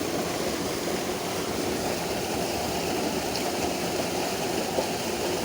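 Steady rushing of flowing stream water, an even hiss-like wash with no breaks.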